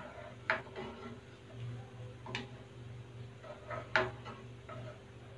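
Plastic spoon stirring thick rajma curry in a nonstick pan, knocking against the pan with a few sharp clicks: one about half a second in, one near the middle and one about four seconds in.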